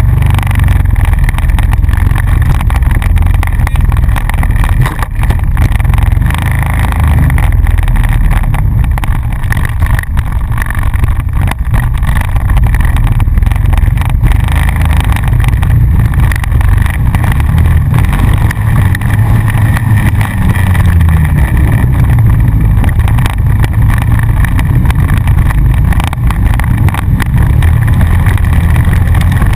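Honda Rancher ATV engine running loud and steady under way, picked up close by a camera on the front rack.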